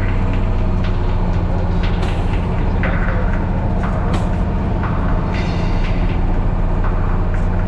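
Unimog diesel engine running steadily under load, with several knocks and rattles from the truck's body and drivetrain over rough ground.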